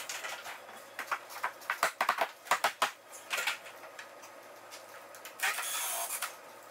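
Scattered light knocks and clicks from hands and tools working a wooden beam against the ceiling, thickest in the first few seconds. A brief hiss comes about five and a half seconds in.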